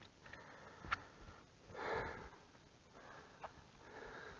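Quiet handling sounds: a single sharp click about a second in, then a short breathy rush of noise near the middle.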